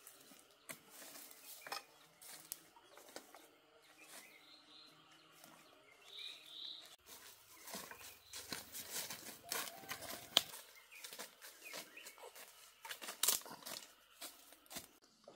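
Irregular rustling and light clattering, dense and uneven, busiest in the middle and latter part, with a few faint bird chirps.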